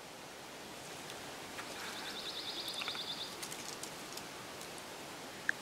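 Dawn chorus in the woods: a small songbird sings a fast, dry, even trill lasting about a second and a half, with scattered short high chips from other birds around it. A brief sharp note stands out near the end.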